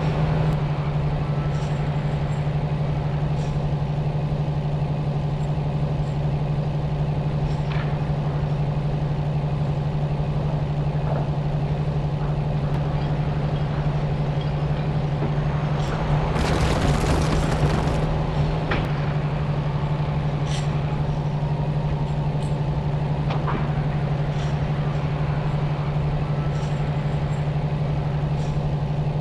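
Engine running steadily at an even low hum, with a brief louder rush of noise about seventeen seconds in.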